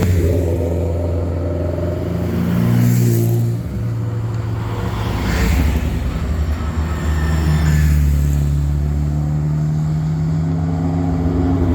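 Hillclimb race car engine running hard under full throttle, its pitch rising and changing in steps as it works up through the gears.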